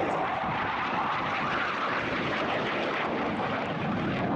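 BAe Hawk 127 jet trainer's Rolls-Royce Turbomeca Adour turbofan passing close overhead with a loud, steady jet roar, the sound sliding lower toward the end as the jet pulls away.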